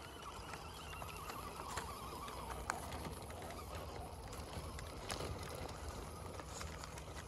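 TRX4-clone RC crawler truck driving over stony ground: its electric motor and gearbox whine, wavering in pitch with the throttle, fades out about two and a half seconds in, while scattered clicks and knocks from the tyres and chassis on stones go on throughout.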